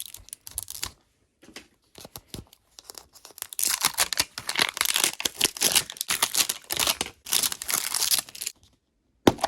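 Packaging of a Mini Verse capsule being torn open and crinkled by hand, with a few clicks at first, then about five seconds of steady rustling and tearing, and a sharp click near the end.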